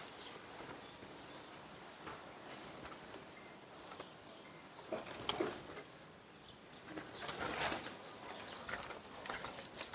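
Caged red-whiskered bulbul flapping its wings as it hops between perches in a bamboo cage, in a few short flurries, the loudest near the end.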